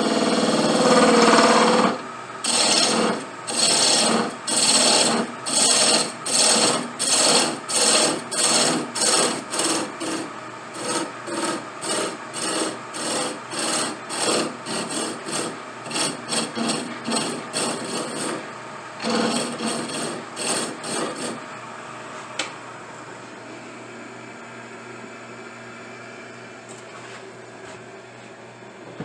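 A hand file or rasp worked back and forth on a pipe part, in regular strokes that quicken from about one to about two a second and then stop about two-thirds of the way in. It opens with a short continuous rub.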